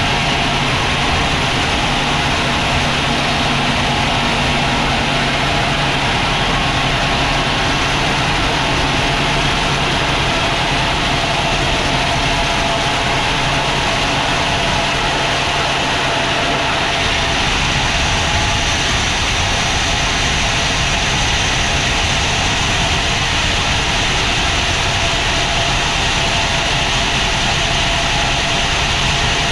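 Sawmill machinery running steadily: an engine hum under a constant hiss. A little past halfway the low engine tone drops away and the sound turns noisier.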